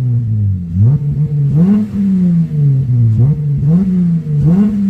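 Car engine revved in a series of quick throttle blips, about six, the pitch climbing sharply and dropping back each time. The Injen X Pedal Pro throttle controller is set to level 6.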